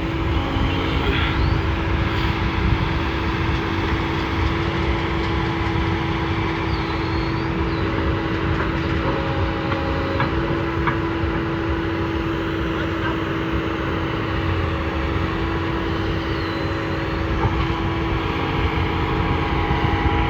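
Heavy earthmoving machine's diesel engine running steadily at a constant pace, with a steady hum and no change in speed.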